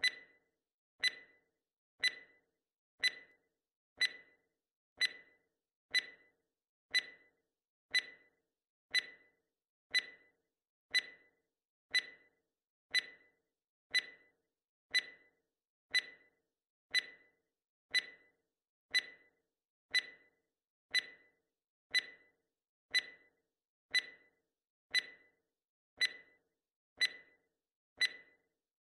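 Countdown timer tick sound effect: a sharp, clock-like tick once a second, each dying away quickly, stopping as the count reaches zero.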